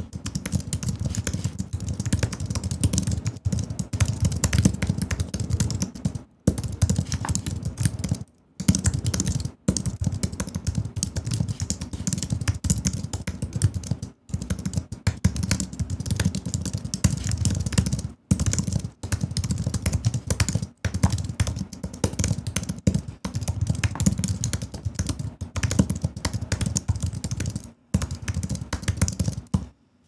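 Fast, continuous touch-typing on a computer keyboard, a dense stream of key clicks at about 100 words per minute, broken by a few short pauses and stopping just before the end.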